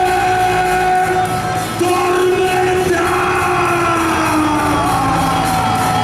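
Music with a singer holding long, slowly gliding notes over a steady backing.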